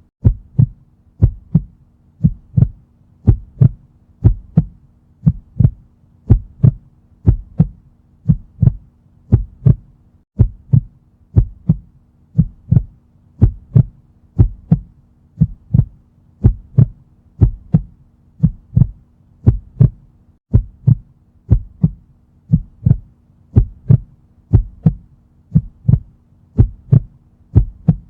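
Heartbeat sound effect: a steady lub-dub of paired low thumps, about one beat a second, over a faint low hum.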